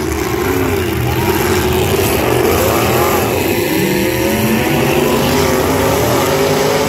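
Several demolition derby pickup trucks' engines running and revving together, their pitches rising and falling over one another.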